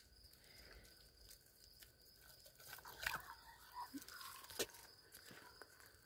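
Faint soft crunches, clicks and scuffs starting a couple of seconds in, as a Great Dane grabs a cicada off asphalt with its mouth and moves off. A steady high chirring of night insects runs underneath.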